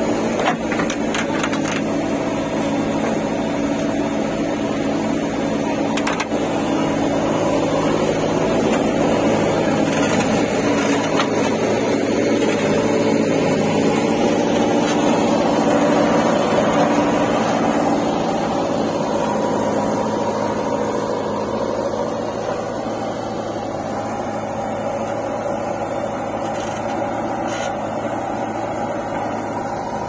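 Diesel engine of a JCB 3DX backhoe loader running steadily under load as it works the backhoe, with a few knocks in the first seconds.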